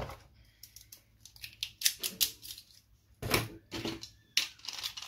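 Beyblade Burst spinning tops being picked up out of a plastic stadium and handled: a run of light plastic clicks and clatters, with a few louder knocks about three seconds in.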